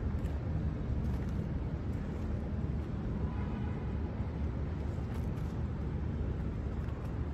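Steady low outdoor rumble of distant city traffic.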